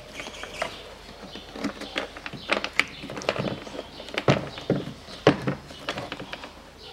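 Black plastic inner door trim panel of a car's rear door being handled and fitted against the metal door, giving irregular clicks, rattles and knocks. The loudest knocks come about four and five seconds in.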